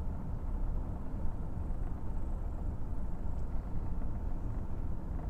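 Ford F-150 pickup truck running, a steady low rumble heard from inside the cab.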